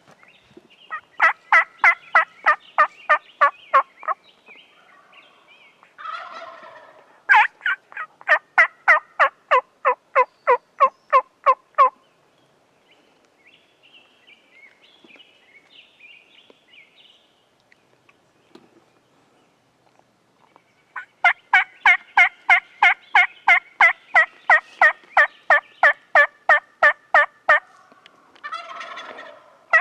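Wild turkey yelping in long runs of evenly spaced notes, about four a second, three runs in all, with a shorter, rougher call between them.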